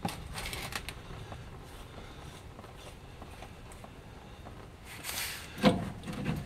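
Hands working a nut joint on a 1949 Chevy 3100's transmission ball housing: scattered small clicks and rubbing of metal parts, then a brief scraping rush and a single sharp knock about five and a half seconds in.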